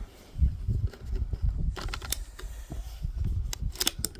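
Metallic clicks and clacks of a Savage A22 semi-automatic .22 LR rifle's action being worked by hand to clear a spent case that failed to eject, with low handling thumps. A cluster of clicks comes near the end.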